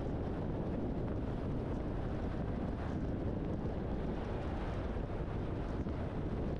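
Steady road and wind noise of a moving truck: a constant low rumble with a hiss above it and no distinct events.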